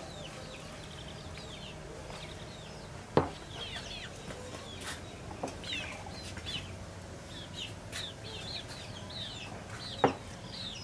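Birds chirping over and over in short, high, falling calls, with two sharp knocks, one about three seconds in and one near the end.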